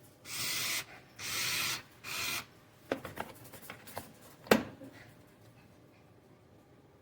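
Three short bursts of hissing, scraping noise in quick succession, then a few light clicks and one sharp click about four and a half seconds in.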